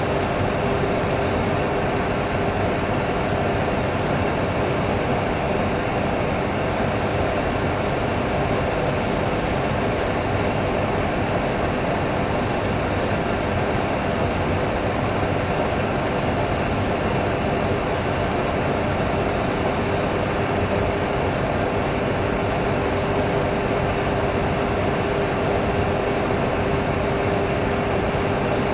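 Steady cockpit noise of a Boeing 737 Classic on final approach: an even hum of engines and airflow with a constant low tone.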